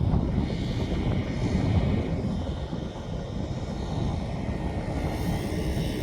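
Jet engines of an airliner on landing approach, a steady low rumble.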